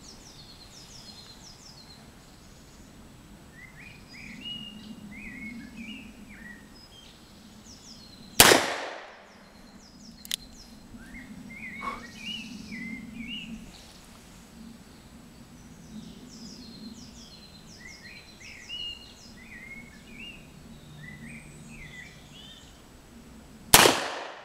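Two shots from a Smith & Wesson Model 1917 revolver chambered in .45 ACP, one about eight seconds in and one near the end. Each is a sharp crack with a short echo trailing off. Birds chirp faintly in the gaps between the shots.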